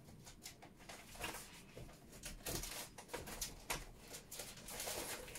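Faint rustling and light clicks and knocks, a few each second, from someone handling things while fetching a set of cards.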